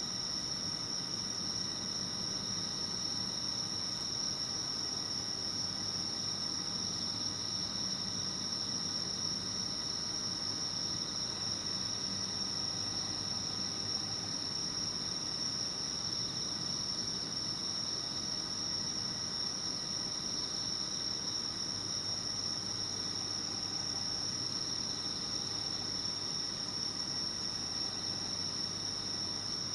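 Steady night chorus of crickets: a continuous high-pitched trill that never breaks, with no fireworks bangs heard.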